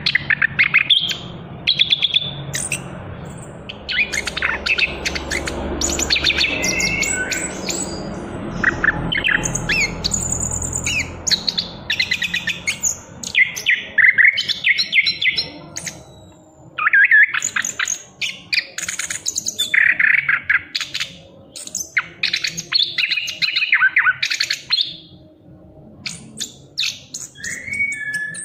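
A young chestnut-capped thrush (anis kembang), just moulting out of its spotted juvenile plumage, singing a long, varied run of fast chirping phrases with only brief pauses.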